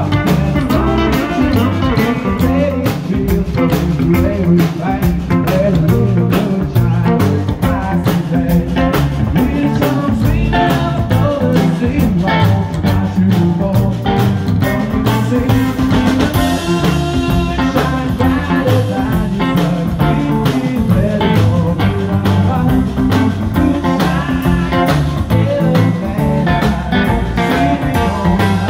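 A rockabilly trio playing a song live: upright double bass, drum kit keeping a steady fast beat, and electric guitar, loud throughout.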